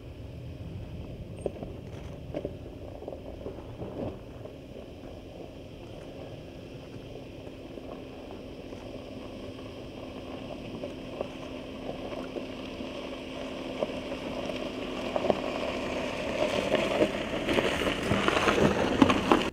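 Audi Q7 SUV driving slowly over a dirt and stone track, its engine running low and steady, with tyres crackling and crunching over stones and brush. The sound grows louder as the car comes close, then cuts off suddenly.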